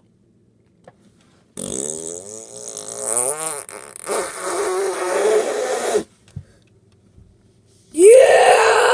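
Fart-like squelching noises from a squishy stress ball being squeezed in the hands: one long wavering squelch, then after a pause another that rises in pitch near the end.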